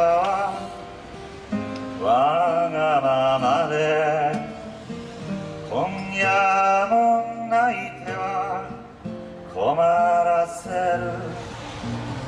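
Man singing with a strummed acoustic guitar, the voice coming in phrases of two or three seconds with short guitar passages between.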